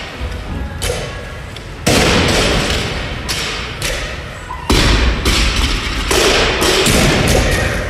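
Loaded barbell with bumper plates thudding on a gym floor during a workout: two heavy impacts about three seconds apart, about 2 s and 5 s in, with lighter knocks and clanks between them and a ringing tail after each.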